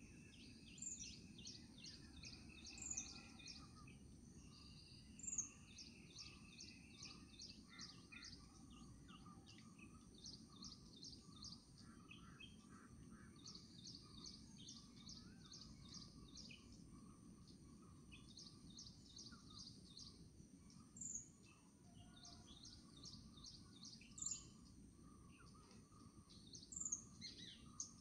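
Faint songbirds chirping: quick runs of short, high repeated notes, with a sharp downward-sliding call every few seconds, over a low steady background noise.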